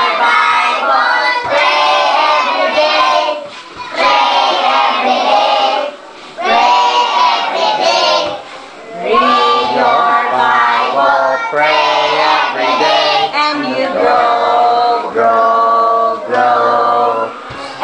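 A group of children singing an action song together in short sung phrases with brief breaks between them.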